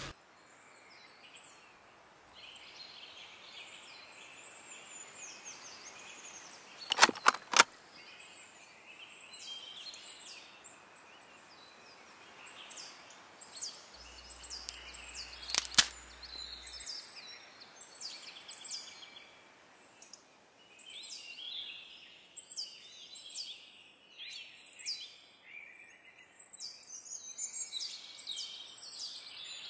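Birds chirping and calling over a faint outdoor hiss, the calls growing busier in the second half. Sharp cracks break in: three in quick succession about seven seconds in, and one more near the middle.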